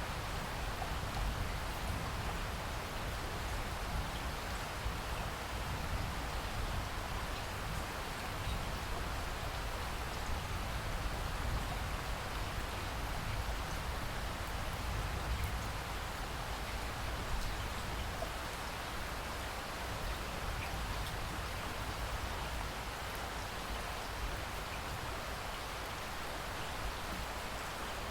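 Steady rain falling, an even continuous hiss with a low rumble underneath.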